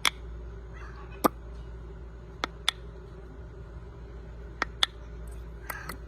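Green-wing macaw making about nine sharp, irregularly spaced clicks, several in quick pairs, with faint whispery sounds between them.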